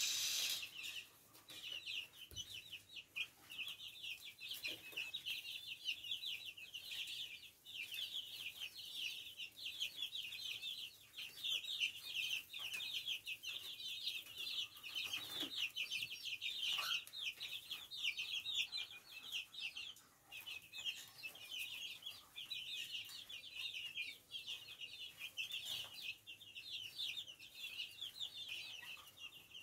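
Young chicks peeping in a continuous chorus of rapid, short, high-pitched cheeps.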